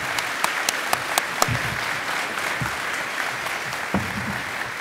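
Audience applauding, with a few sharp, close claps standing out in the first second and a half.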